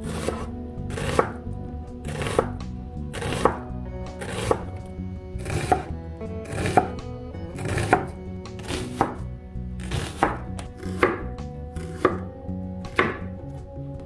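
Santoku knife chopping an onion on a bamboo cutting board: crisp knife-on-board knocks about once a second.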